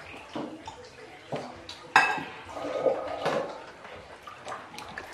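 Plates and cutlery clinking at a meal table, with a sharp clink about two seconds in, and water splashing as a hand is rinsed in a bowl of water.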